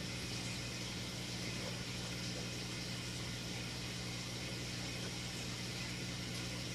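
Steady low hum with an even hiss, from aquarium equipment running.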